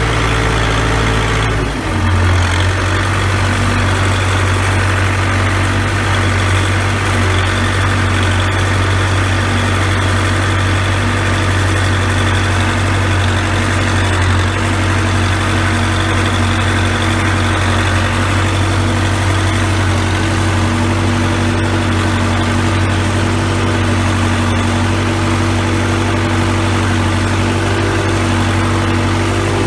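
Four-cylinder diesel engine of a Case 580B backhoe running steadily, with a brief dip in level and a shift in its low engine note about two seconds in.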